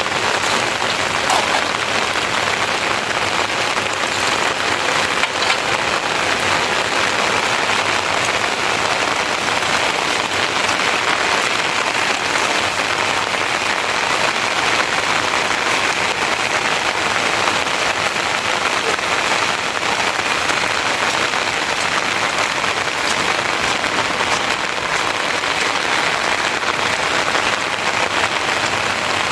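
Rain falling steadily, an even, unbroken hiss of drops.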